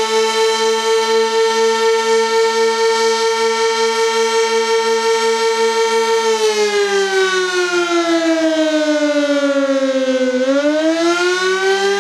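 Sentry 16V-1T-B single-tone outdoor warning siren sounding the Attack signal: a steady tone with a fast, regular pulsing in loudness for about six seconds. The pitch then slides down for about four seconds and rises back near the end, the wavering wail of the Attack signal.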